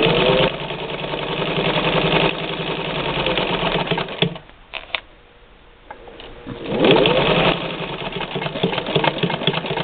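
1952 Singer 15-91 electric sewing machine stitching through heavy-duty Velcro, its direct-drive motor rising in pitch as it speeds up. It stops about four seconds in, then spins up and sews again a couple of seconds later.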